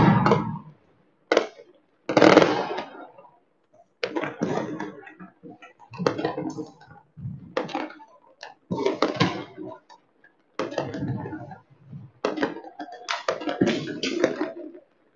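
Fireworks and firecrackers going off: a string of sharp bangs, about one a second, each trailing off briefly, the loudest right at the start.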